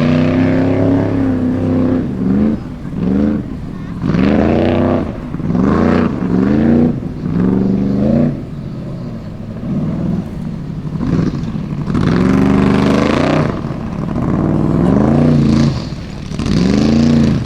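Formula Offroad buggy's engine revving in repeated short bursts, its pitch climbing and dropping about a dozen times as the throttle is blipped on and off.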